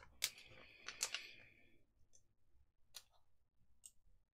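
Sparse light clicks and taps of small tools and parts being handled on a workbench, about four in all, with a short scraping hiss in the first two seconds.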